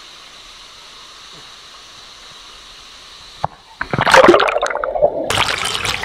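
Steady rush of a waterfall, then about three and a half seconds in a knock and loud water splashing and sloshing right against the camera's microphone, briefly muffled as it goes under the surface.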